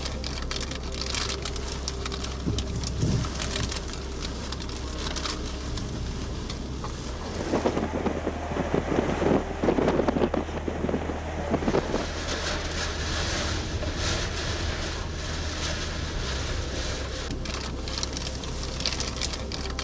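Heavy storm rain falling, a steady hiss with fine crackling drops, swelling into a louder, rougher surge in the middle for about four seconds.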